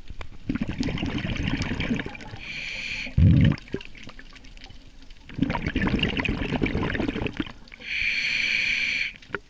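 Scuba diver breathing through a regulator underwater: twice, about two seconds of exhaled bubbles is followed by a shorter hissing inhale through the regulator. A brief loud low thump comes just after the first inhale.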